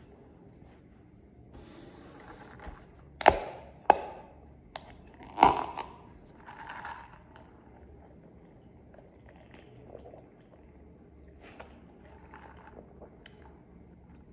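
Paper fast-food packaging and a paper drink cup being handled on a wooden table. There are two sharp clicks a little over three seconds in and a louder knock about two seconds later, with rustling around them, then only faint handling sounds.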